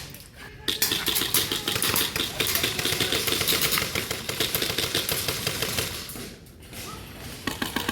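Airsoft guns firing on full auto: a dense, rapid clatter of shots starting just under a second in and running for about five seconds before thinning out, with a short burst again near the end.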